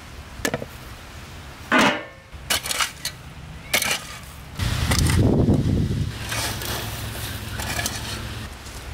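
A metallic clank with a brief ring about two seconds in, then a wide-bladed digging hoe striking and scraping into dry soil several times.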